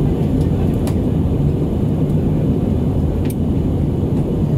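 Airbus A319 cabin noise in flight: a steady low roar of engines and airflow heard from a window seat. Two faint ticks sound about a second in and again past three seconds.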